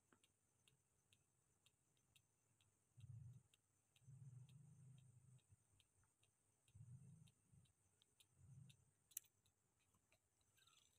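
Near silence: faint, regular ticking, about three ticks a second, with a few soft low thuds and one brief click near the end.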